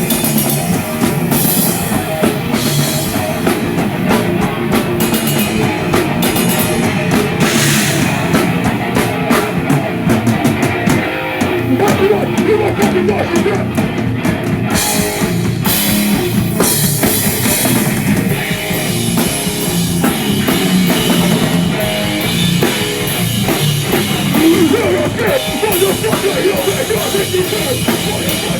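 A live rock band playing loud heavy rock, with a pounding drum kit and guitars.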